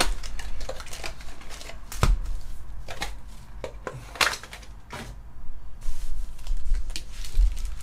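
Trading-card packs being handled: plastic wrappers crinkling and rustling, with scattered light clicks and a sharper tap about two seconds in.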